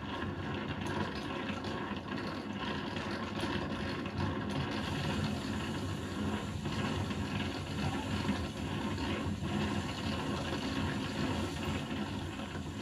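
Soundtrack of GoPro riding footage playing through a TV's speakers: a steady engine-like noise with scattered small clicks.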